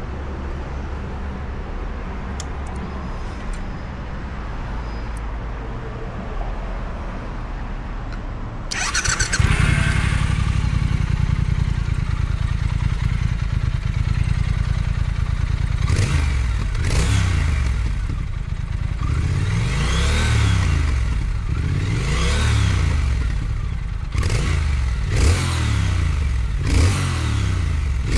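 Triumph Thruxton 1200 FE's parallel-twin engine running through its stock exhaust with the catalytic converter still fitted. It turns louder about nine seconds in, and in the second half it is revved about eight times, each rev rising and falling in pitch.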